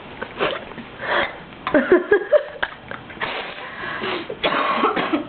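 A woman coughing repeatedly, in a string of short, harsh coughs.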